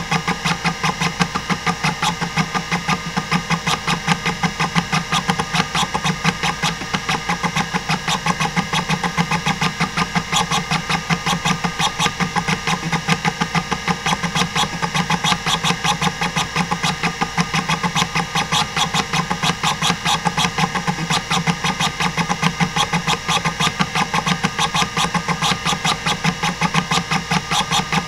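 Hitachi DK505-2 stepper-motor hard drive seeking at random under a SpinRite access benchmark: a rapid, even train of buzzy head-stepping clicks over the steady tone of the spinning platters. This is a healthy vintage drive.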